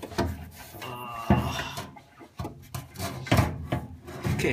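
Knocks, rubs and a short squeak about a second in as the dryer's sheet-metal panels and parts are handled during disassembly.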